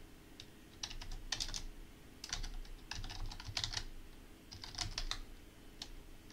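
Computer keyboard keys clicking in irregular short bursts as a line of text is typed, followed by a single keystroke near the end.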